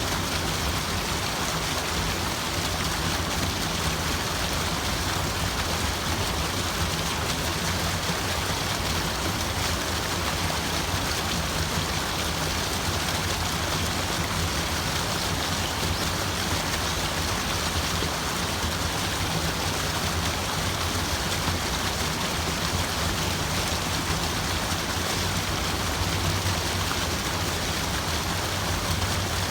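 Steady, continuous rush of flowing water, even and unchanging throughout.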